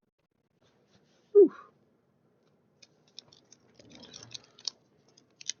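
A person taking a hit of cannabis: a short, loud throat sound that falls in pitch about a second and a half in, then soft breathy rustling with small light clicks toward the end.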